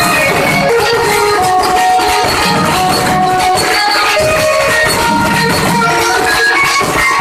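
Loud live street-band music: a fast melody of short held notes over heavy barrel-drum (dhol) strokes and sharp, frequent strikes of handheld percussion.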